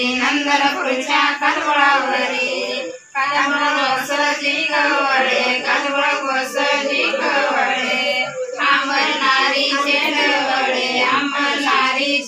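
Women singing a Marathi paalna, the traditional cradle song, together over a baby in a sari cradle, in long drawn-out phrases with brief breath pauses about three and eight seconds in.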